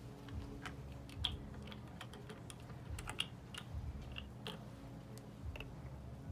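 Small irregular plastic clicks and taps as an ink dropper bottle's cap is twisted off and the bottle is handled over an airbrush's metal paint cup, over a steady low hum.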